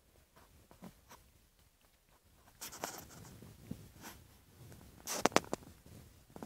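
Scratchy rustling and scraping close to the microphone, with a short, loud cluster of sharp clicks about five seconds in.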